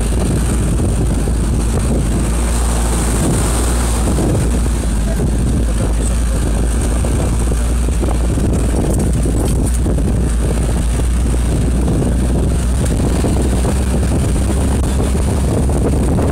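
Car engine running steadily under load, with the rumble of tyres on soft beach sand, heard from inside the cabin.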